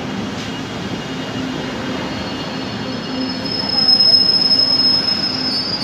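JR 205 series electric commuter train running past at low speed with a steady low rumble and hum. About halfway through, a high, steady metallic squeal sets in and becomes the loudest sound.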